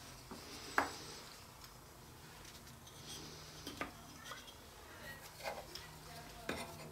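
Small wooden pieces and a metal square being handled and set down on a workbench glue-up board: one sharp click a little under a second in, then a few softer taps.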